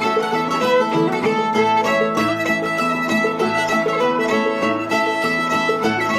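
Old-time string band playing a fiddle tune, with the fiddle carrying the melody over guitar, mandolin and banjo.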